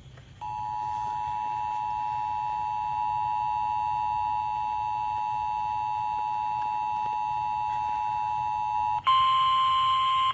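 Emergency Alert System attention signal on FM radio: a steady two-tone alarm sounding for about eight and a half seconds. Near the end it cuts over abruptly to a louder single steady tone.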